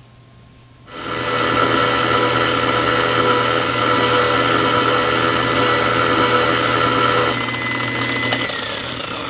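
A small electric polishing tool's motor starts about a second in and runs steadily with a pitched hum. Near the end it weakens and its pitch falls as it winds down.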